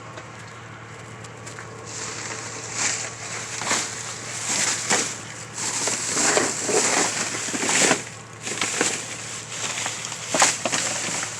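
Rustling and crunching of trash bags and rubbish being rummaged through in a dumpster, in irregular bursts starting about two seconds in.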